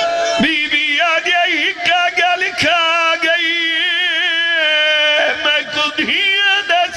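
A man's voice chanting a mournful lament, the zakir's sung masaib recitation, holding long wavering notes with a few short breaks for breath.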